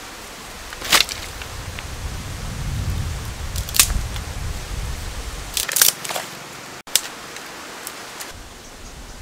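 Dry sticks cracking and clattering in a few sharp snaps, one about a second in, another near the middle and a quick cluster a little later, over a steady hiss of outdoor background noise.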